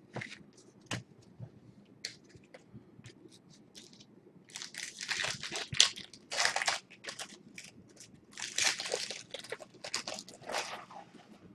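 Trading cards snapping lightly as they are flicked through by hand, then a foil card-pack wrapper torn open and crinkled in two loud stretches, the first about halfway in and the second near the end.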